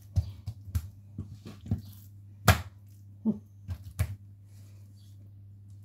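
Hands patting and pressing rounds of yeast dough flat on a tiled countertop: soft, irregular pats and taps, with one louder knock about two and a half seconds in, over a low steady hum.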